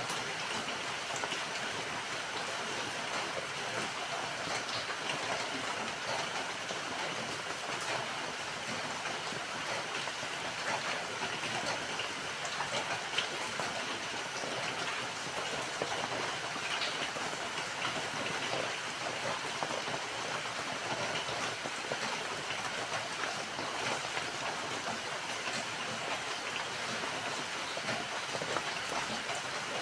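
Steady rainfall: an even hiss of falling rain with many fine drop ticks, unchanging in strength.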